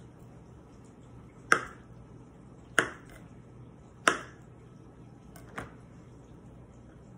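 A chef's knife slicing through a banana and striking the cutting board three times, sharp knocks a little over a second apart, followed by a fainter knock.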